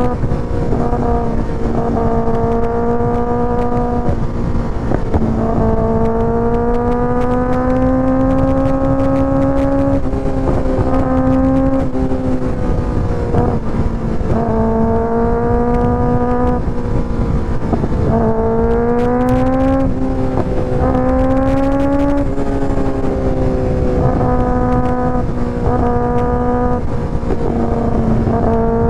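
2024 Kawasaki ZX-6R's 636 cc inline-four running through an IXIL aftermarket exhaust while being ridden: a steady drone that climbs smoothly in pitch a few times, drops back, and breaks off briefly now and then, over a constant low rush.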